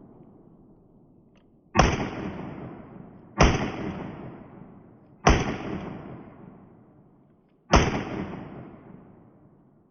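Four shotgun shots, each with a long echoing decay, fired about two seconds apart.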